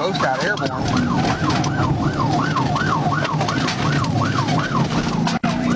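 Police cruiser siren on its fast yelp setting, the pitch sweeping up and down about three to four times a second over the steady hum and road noise of the car driving at speed. The sound cuts out for an instant near the end.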